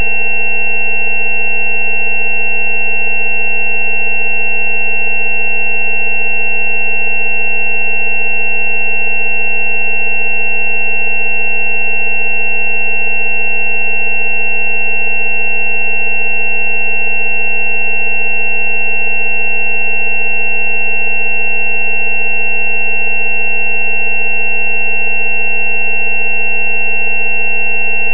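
Steady synthesized sine tones held without any change: a low tone at 190 Hz, the frequency offered as a 'healing frequency' for dental abscesses, layered with several higher steady tones, of which the highest-pitched is the loudest.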